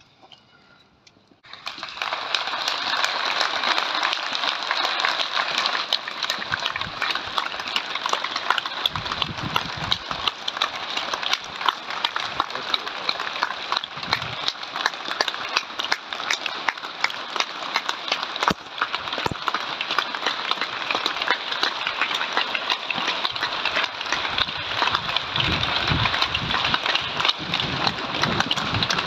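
Crowd applauding steadily, a dense patter of many hands clapping that starts abruptly about a second and a half in.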